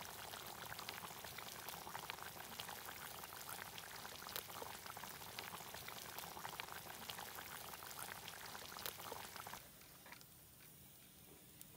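Thick chicken curry boiling hard in a karahi over a wood fire, a dense bubbling with many small pops and sputters. It gives way suddenly to a much quieter hush near the end.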